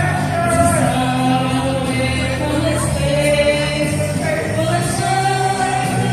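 Music with singing voices, steady and continuous.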